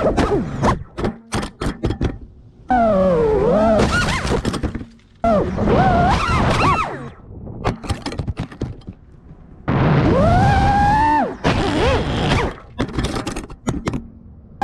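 FPV quadcopter's motors and propellers whining, rising and falling in pitch as the throttle changes, then cut off by crashes: sharp cracking and clattering impacts as the drone hits and tumbles. This happens three or four times in quick succession.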